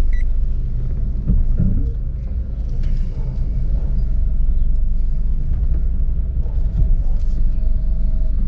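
Steady low rumble of a Renault Fluence 2.0 sedan on the move, engine and road noise heard from inside the cabin.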